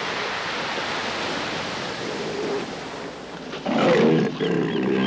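Surf washing on a beach, then from about three and a half seconds in a loud, low call of a bull northern elephant seal, the threat call of a rutting bull in the mating season.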